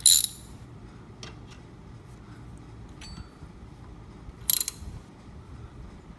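Hand wrench tightening the centre-stand pivot bolt, making short metallic ratcheting clicks: two loud bursts, one at the start and one about four and a half seconds in, with a few faint ticks between.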